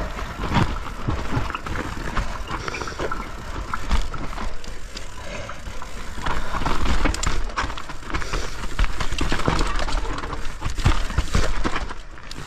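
Mountain bike riding down a snowy trail: tyres on snow and rough ground, with constant rattling and frequent sharp knocks from the bike over a steady low rumble.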